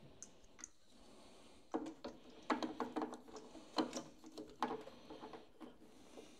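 Clicks and rattles of hands working small wiring parts and spade terminals inside a mini excavator's dash panel. They come in several quick clusters from about two to five seconds in.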